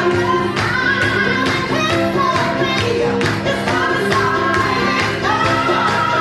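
Dance-pop song with singing over a steady beat.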